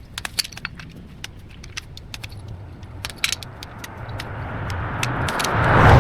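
A car driving past, rising steadily to its loudest near the end, over a run of many sharp clicks and snaps.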